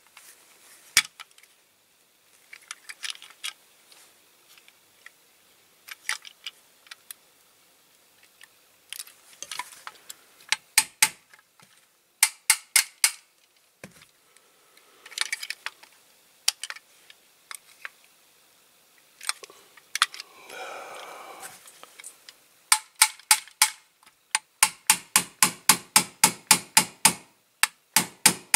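Small hammer tapping metal pins into a diecast toy truck body: clusters of sharp metallic taps, then near the end a quick run of about four ringing taps a second. A short scrape of metal on metal comes about two-thirds of the way through.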